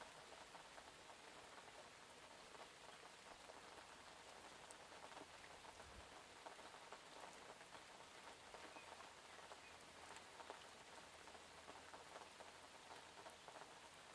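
Faint, steady rainfall, with many small drops ticking on a surface.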